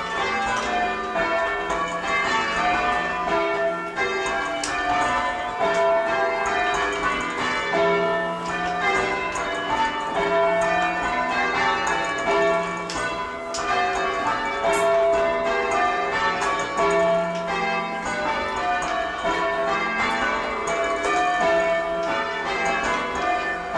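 A ring of church tower bells rung full-circle by rope in change ringing: a continuous, even sequence of bell strikes overlapping in their ringing. The sixth bell has lost its clapper, so it swings without sounding and leaves a gap in each row.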